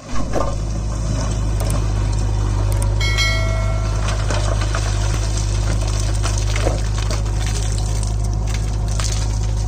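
JCB 3DX backhoe loader's diesel engine running steadily under load while its bucket digs and scrapes through a pile of stone rubble, with scattered knocks of stone. A brief high whine about three seconds in.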